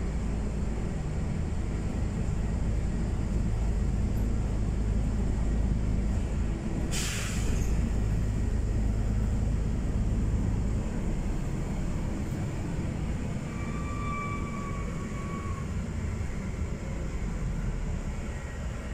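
LiAZ-6213 articulated city bus heard from inside while under way: steady low engine and road rumble, with a short burst of hissing air from the bus's air system about seven seconds in.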